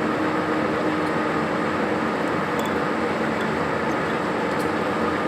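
Metal lathe running steadily, spinning a crankshaft, with an even mechanical hum.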